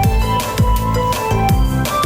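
Background electronic music with a steady beat of deep kick drums that drop in pitch, about two a second, under held synth notes.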